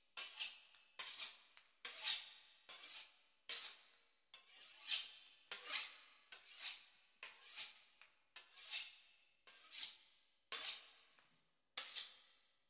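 A steady series of short scraping swishes, about one and a half a second, each swelling and fading, with a faint ring in some strokes.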